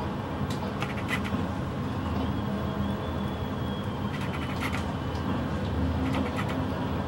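Diesel tipper truck engines running with a steady low rumble as one truck pulls away. Several short bursts of clicking and whirring come through over it from the Canon 650D kit lens's autofocus motor, picked up by the camera's built-in microphone.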